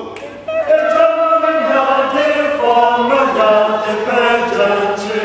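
A choir singing a short phrase of African choral music together, several voices at once. It starts about half a second in, on a spoken count-in, and breaks off near the end. It is a passage being drilled in rehearsal.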